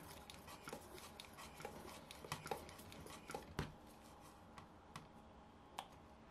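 Faint clicks, taps and light rubbing from hands handling a model glow engine with its plastic fuel tubing and wooden propeller, with one duller knock about three and a half seconds in.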